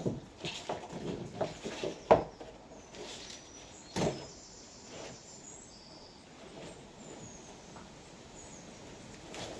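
Scattered knocks and clatter of a wiring loom and parts being handled, with a sharp knock about two seconds in and another about four seconds in, then a quieter stretch with faint high chirps.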